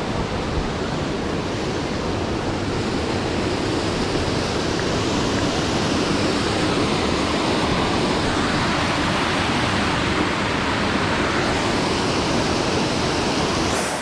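Large waterfall: a loud, steady rush of falling water.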